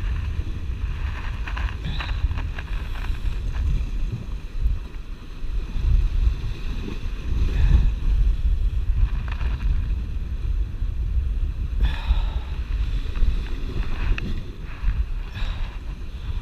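Sea waves washing and splashing against shore rocks, swelling several times, under a heavy rumble of wind buffeting the microphone.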